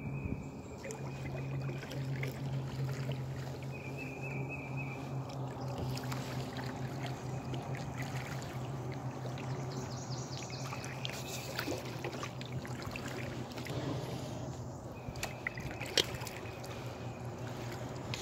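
Kayak paddling in calm water: water trickling and dripping off the paddle and lapping at the hull, over a steady low hum. One sharp knock comes near the end.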